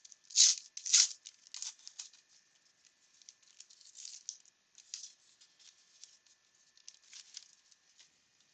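A baseball card pack wrapper being torn open and crinkled by hand, then soft rustling as the pack is handled. The loudest rustles come in the first second or so; after that they are fainter and scattered.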